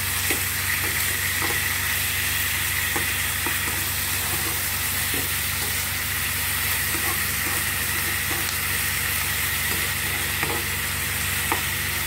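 Beef, onions and garlic sizzling in a frying pan as they are stirred, with a steady hiss and light knocks and scrapes of the spatula against the pan every few seconds.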